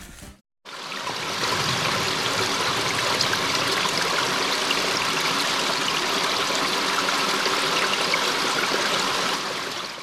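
River water running over rocky shoals, a steady rushing that fades in just after the start and fades out near the end.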